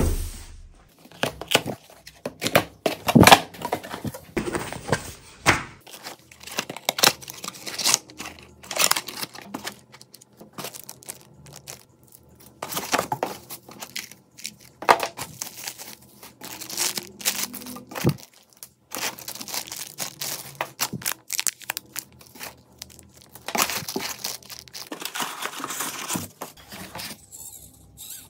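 Unboxing handling sounds: packaging rustling and crinkling as plastic wrap and a cardboard box are handled, in irregular bursts with occasional sharp knocks.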